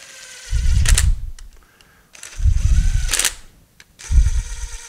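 Cordless DeWalt driver with a socket bit running bolts into the back of a steel three-jaw lathe chuck, in three short bursts. The bolts are being run in only to snug them loosely, though they are driven in harder than meant.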